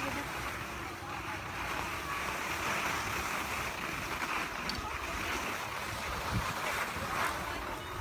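Steady rushing noise of wind over a phone's microphone outdoors.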